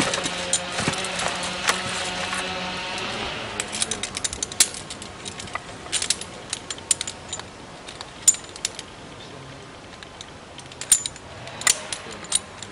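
Top-handled chainsaw engine running steadily, dying away about three seconds in. Then a scatter of sharp clicks and knocks.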